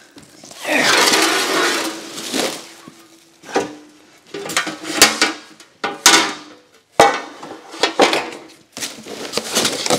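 Foam and cardboard packing rustling as a long steel coolant splash guard for a surface grinder is pulled from its box, then several sharp metallic clanks with brief ringing as the sheet-metal guard knocks about and is laid on the concrete floor.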